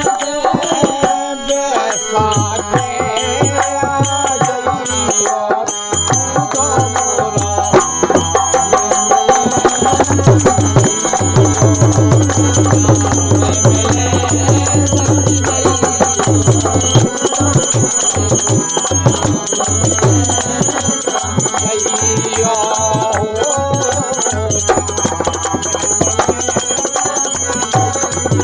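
Bundeli folk devotional singing: a man's voice over a harmonium, with a dholak drum, small hand cymbals and hand claps keeping a steady beat.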